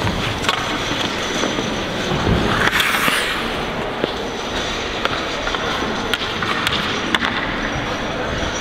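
Hockey skates scraping and gliding on rink ice, with a few sharp clacks of sticks on the ice over a steady noise. A louder hissing scrape comes about three seconds in.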